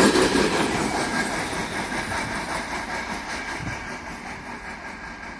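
Container freight train running past and fading steadily as its tail end, the guard's van, moves away down the track.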